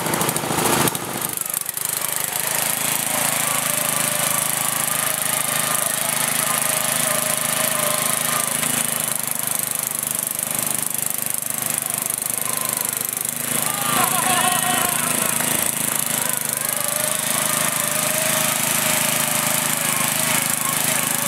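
A riding lawn mower's engine runs steadily as the mower drives through a mud hole.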